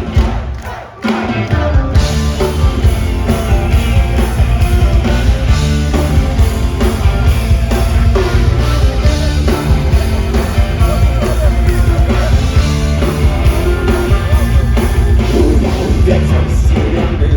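Punk rock band playing live at full volume, with loud drums and bass. The music drops out briefly about a second in, then the whole band comes back in and plays on steadily.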